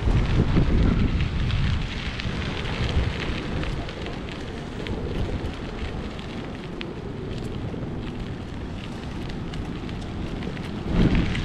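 Wind buffeting the microphone: a low rumbling gust at the start, easing off in the middle and swelling again near the end, with scattered faint crackles.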